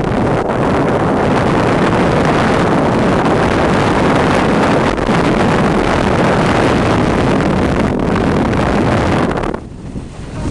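Wind buffeting the microphone and sled runners hissing over packed snow during a fast toboggan run downhill. The rushing noise stays steady and loud, then drops briefly near the end before picking up again.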